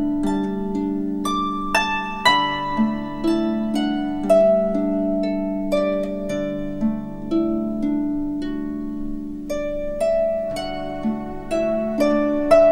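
Slow instrumental background music: single plucked notes struck every half second to a second, each ringing and fading, over held lower tones.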